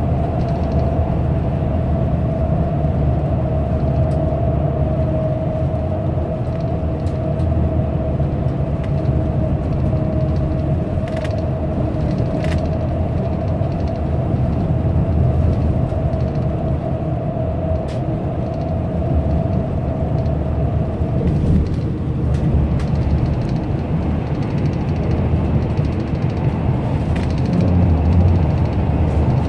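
Cabin noise inside a moving bus at highway speed: a steady low rumble of engine and tyres with a steady whine over it that stops about two-thirds of the way through. The rumble grows louder near the end as the bus enters a tunnel.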